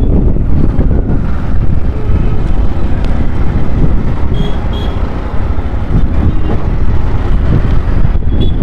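Busy road traffic heard while moving through it: a dense, steady low rumble of vehicle engines and tyres. Two short high beeps come about four and a half seconds in.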